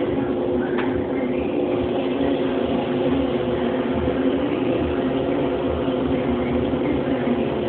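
A steady mechanical drone: a low rumble with a constant hum on top, holding at one level without change.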